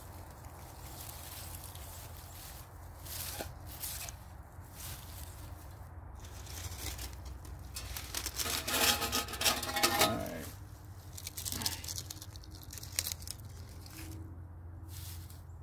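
Dry grass and plant-fibre tinder bundle (a bird's nest) being pulled apart and torn by hand, a dry crackling rustle in scattered bursts. It is loudest for about two seconds past the middle.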